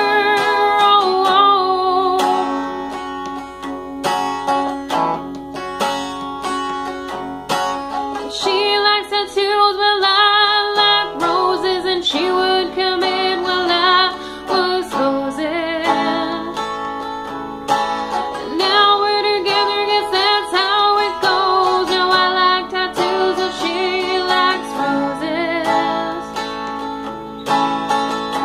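A woman singing a song while strumming chords on an electric guitar.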